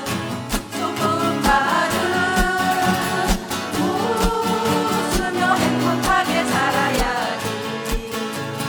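Singing over instrumental accompaniment, with guitar and a steady beat of about two thumps a second.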